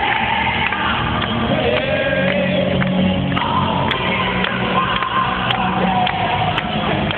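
Live song played through an arena's loudspeakers: a singer holds long, sliding notes over an amplified band backing with a steady beat, echoing in the large hall.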